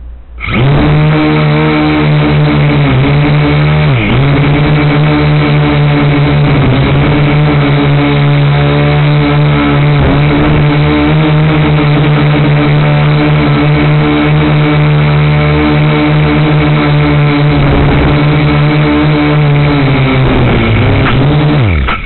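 Crazyflie 2 nano quadcopter's small coreless motors and propellers buzzing loudly as it lifts off, flies and sets down. The buzz starts abruptly about half a second in, holds a steady pitch with brief dips now and then, and winds down and stops near the end as it lands.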